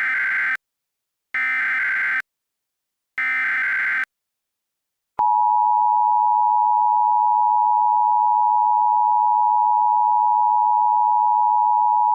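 Emergency Alert System SAME header: short bursts of rapid digital data tones, the first already underway and two more following about two seconds apart. About five seconds in comes the steady EAS attention signal, a loud unbroken tone.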